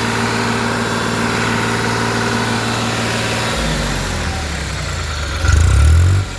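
Bulldozer diesel engine running at idle with its silencer refitted, steady at first; about halfway through the note changes and turns lower and rougher, then a loud low rumble swells near the end and cuts off sharply.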